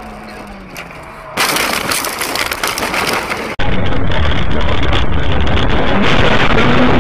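Dashcam car audio: engine and road noise, broken by a loud rushing noise lasting about two seconds. A cut follows into louder, steady engine and road noise, with the engine pitch rising near the end.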